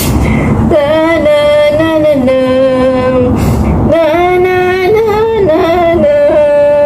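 A woman sings a slow lullaby tune without clear words, in two long phrases of held notes, over a steady low rumble of background noise.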